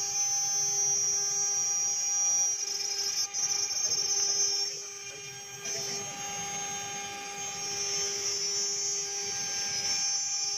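High-speed spindle of a mini CNC engraving machine whining steadily as a small end mill cuts into a metal plate, a high whine over a steady lower hum. It drops quieter for about a second near the middle, then picks up again.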